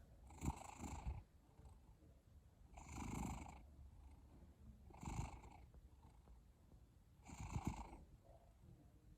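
Cat snoring in its sleep: four faint snoring breaths, each about half a second to a second long, spaced about two to two and a half seconds apart.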